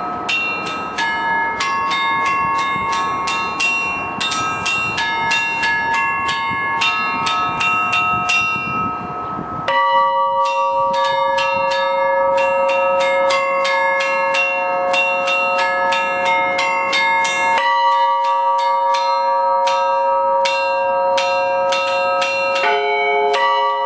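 Russian Orthodox church bells rung by one bell-ringer in a half-improvised peal: quick, dense patterns on the small bells. About ten seconds in, a deeper bell joins with repeated strokes and the ringing grows louder.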